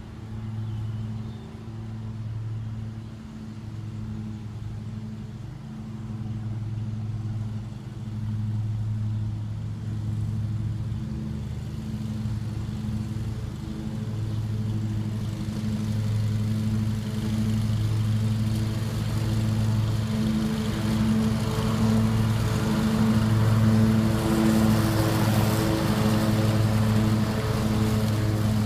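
Riding lawn mower's engine running at a steady speed, growing steadily louder as it approaches, with more hiss coming in toward the end.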